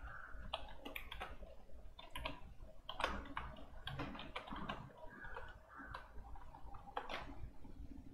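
Computer keyboard being typed on: faint, irregular runs of key clicks.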